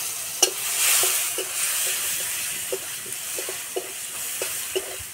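Chopped tomato sizzling in hot mustard oil in a metal kadai. The sizzle is loudest about a second in and eases a little after that, while a metal spatula scrapes and taps against the pan over and over as the tomato is stirred.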